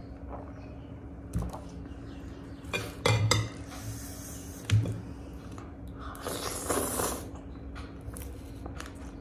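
A metal fork clinking and knocking against a glass bowl of noodle soup while eating, with a longer noisy stretch around six to seven seconds in as noodles are slurped. A faint steady hum runs underneath.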